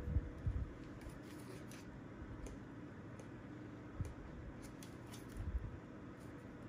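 Handling noises from a small plastic battery desk fan being handled and positioned: a few low thumps, near the start, about four seconds in and again a little later, with scattered light plastic clicks.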